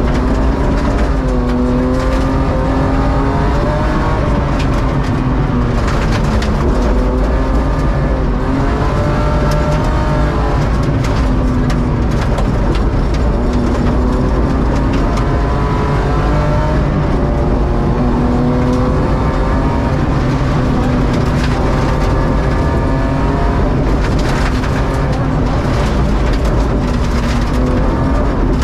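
BMW E36 rally car's engine at full throttle, heard from inside the cabin, its pitch climbing and then dropping again and again with gear changes and lifts for corners. Sharp clicks and knocks from gravel and bumps on the loose-surface road run through it.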